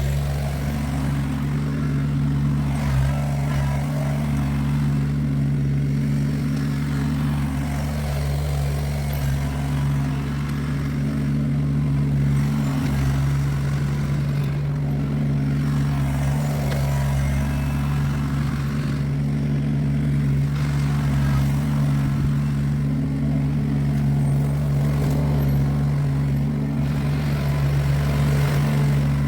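Kubota BX23S tractor's three-cylinder diesel running at a steady throttle, its pitch holding level throughout.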